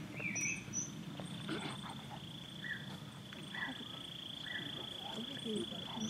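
A steady high-pitched insect trill sets in about a second in and keeps going, over an outdoor background with a few short bird notes spaced about a second apart.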